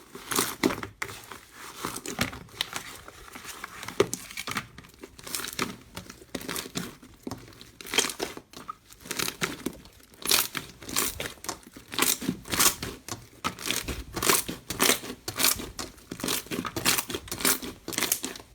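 Slime being squeezed and worked by hand close to the microphone, giving a dense, uneven run of crinkly crackles and pops.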